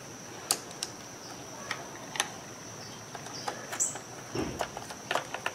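Scattered light, sharp clicks of a screwdriver and small plastic parts being handled as the Brondell Swash 300 bidet's plastic water valve is screwed back together, over a faint steady high whine and hiss. A short high chirp comes a little before the middle.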